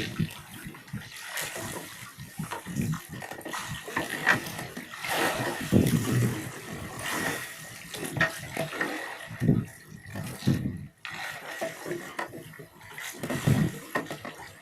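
Water sloshing and splashing, with irregular low knocks and bumps.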